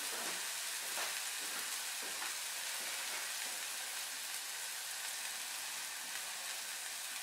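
Tuna steak sizzling steadily in a hot frying pan, a constant hiss with a few faint pops.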